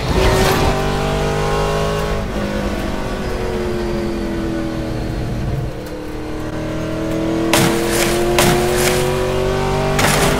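Race-car engines revving, their note slowly dropping and then rising again, with several sharp crashes late on.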